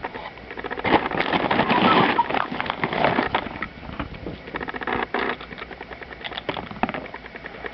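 A hen pecking at and crunching pieces of dry sweetened cereal: a quick run of sharp clicks and crackles, busiest about one to three seconds in and lighter after.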